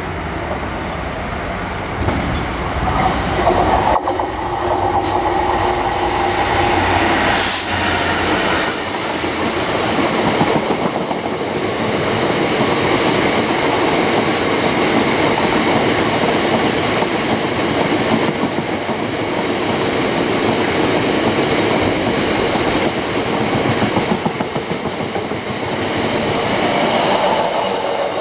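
Diesel-hauled freight train of box wagons passing close by: the locomotive goes past in the first several seconds, then a long rake of wagons follows with a continuous heavy rumble and clatter of wheels over the track.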